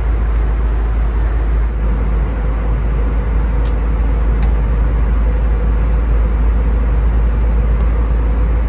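Airbus A320 cabin noise in cruise: a steady, loud low rumble of engines and airflow, with a faint steady tone above it.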